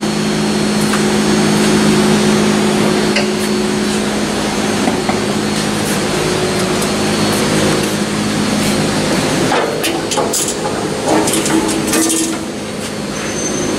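Steady machine hum with a few constant low tones. From about two-thirds of the way in, scattered metal clanks and knocks sound over it.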